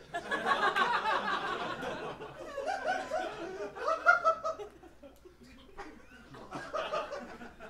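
Audience laughing: a dense burst of many voices for about the first two seconds, then scattered laughter that dies down and picks up again near the end.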